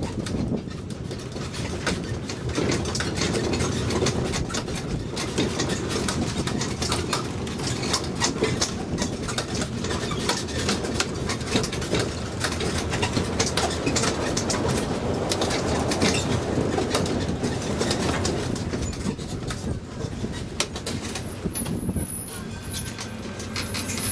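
Ride noise aboard a rubber-tyred mini road train: the tractor unit's engine and the tyres running steadily, with the open carriages rattling and clicking.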